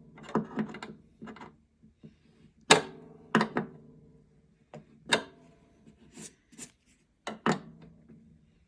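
Wrench tightening the pickup's mounting nut on the harp: a series of sharp metal clicks and knocks, several followed by a short ringing from the harp's body.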